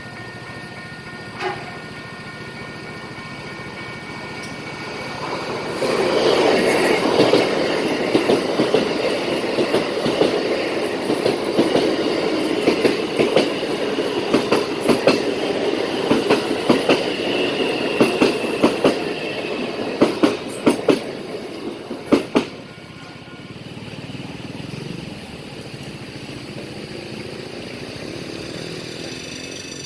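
A train passes by, its wheels clicking over the rail joints, loud from about six seconds in until it is suddenly gone a little after twenty seconds.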